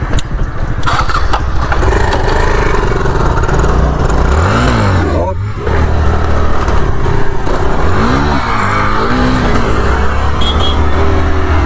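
Motorcycle and scooter engines running on the move, with wind rushing over the microphone. The revs rise and fall twice, about four and eight seconds in, as the motorcycle accelerates ahead.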